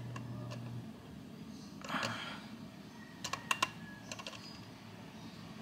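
Small plastic clicks and a brief rub from the back of a Seiko QHK025S alarm clock as its setting dial is turned to set the alarm. A quick run of sharp clicks a little after three seconds in, then a few more just after four seconds.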